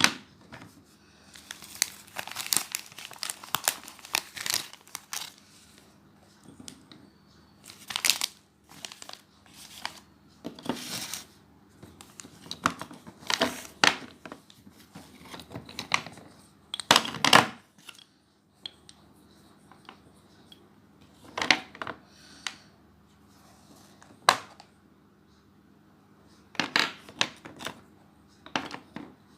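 Unboxing: packaging wrap crinkling and tearing in short irregular spells, with quiet gaps of a second or two between them.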